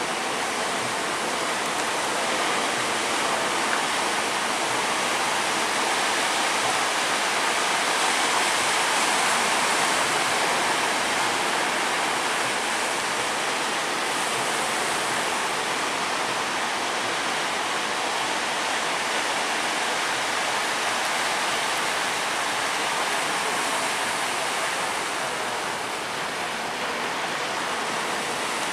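Steady, unbroken rush of sea water and waves, swelling slightly a few seconds in.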